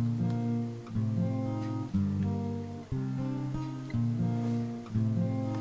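Background music: strummed acoustic guitar, with a new chord about once a second.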